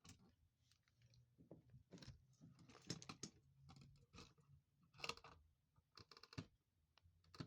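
Faint, irregular clicks and scrapes of hands and tools working at an opened wall socket and its wiring.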